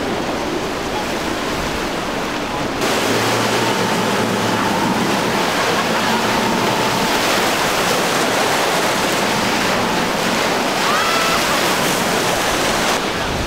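Rushing surf and waves breaking, with the spray of a boat hull slamming through rough chop. It gets louder and brighter about three seconds in. A low outboard engine drone sits underneath for a few seconds after that.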